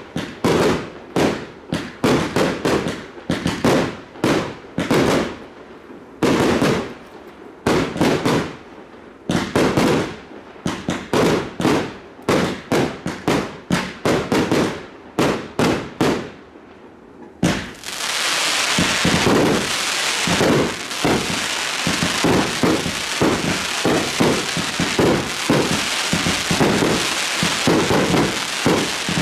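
Fireworks going off: rapid volleys of sharp bangs, several a second, with brief pauses between volleys. About two-thirds of the way in this turns into a continuous dense crackle with bangs over it, a barrage.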